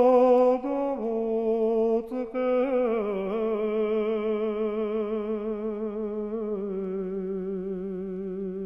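Music: a solo voice humming or singing long held notes with vibrato, stepping slowly downward in pitch.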